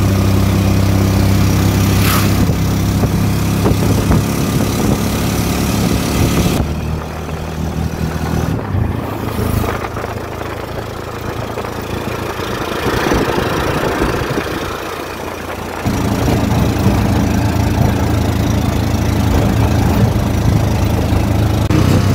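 Motor tricycle (keke) engine running while riding. A little after a quarter of the way in, its sound drops and goes quieter for about nine seconds, then comes back up to a steady run.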